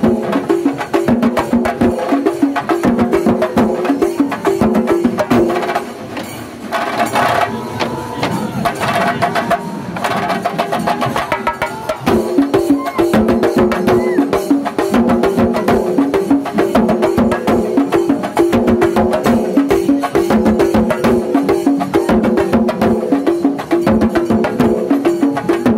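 Live festival ensemble playing fast, dense drumming with a melody line above it. The drumming thins and drops back about six seconds in, then returns at full strength around twelve seconds.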